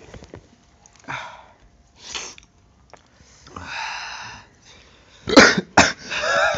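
A young man coughing while eating: a few lighter coughs and throat-clearing early on, then a bout of loud, sharp coughs near the end as he doubles over.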